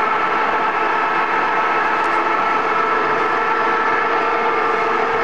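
Bark shredder with rows of steel cutter discs, driven by a 15 hp electric motor through a reduction gearbox and roller chain, running steadily with a constant whine over a dense mechanical hum.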